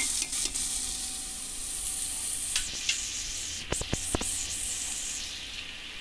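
Chopped onions sizzling in hot oil in a pressure cooker, with a metal spoon scraping and clinking against the pot as they are stirred. A few sharp clinks come about three to four seconds in, and the sizzle fades near the end.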